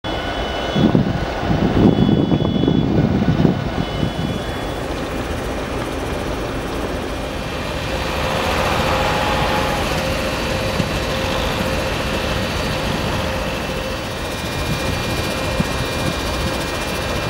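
Freight train with a steady mechanical drone: heavy low rumbling and clatter from the cars in the first few seconds, then a GE Dash 9-44CW diesel locomotive's engine running with a steady hum and a thin whine over it.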